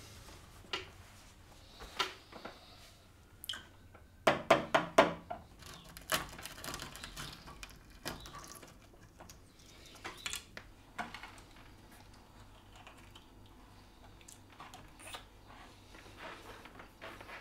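Scattered clicks and knocks in a small room, with a quick run of about six louder knocks about four seconds in.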